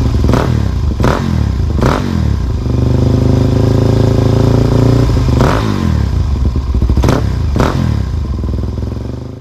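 Motorcycle engine running loud and steady, broken about six times by short sharp cracks where the engine note jumps, and cutting off suddenly at the end.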